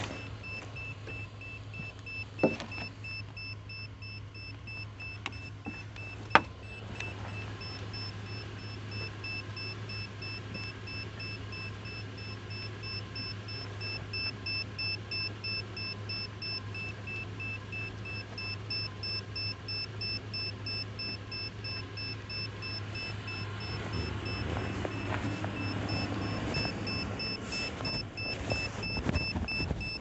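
A vehicle engine idling steadily under a rapid, high-pitched electronic warning chime that beeps on and on without a break, typical of a car door-open or key-in-ignition alert. Two sharp clicks come a few seconds in.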